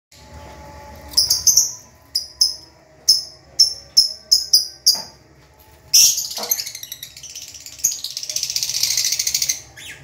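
A flock of lovebirds calling: about ten sharp, high chirps in quick succession, then a dense, rapid chattering for nearly four seconds that cuts off just before the end.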